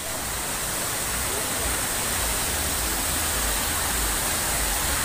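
Kempty Falls waterfall: water pouring down the rock face into the pool, a loud, steady rush that starts abruptly and drowns out voices.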